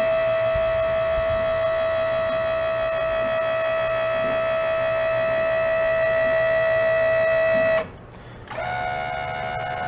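Convertible-top hydraulic pump motor, salvaged from a Plymouth, running with a steady whine as it works the dump bed's lift cylinders. It stops about eight seconds in and starts again a moment later at a slightly higher pitch.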